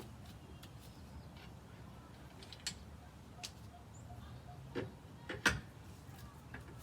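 Scattered light clicks and a few sharper knocks, the loudest about five and a half seconds in, over a faint low hum.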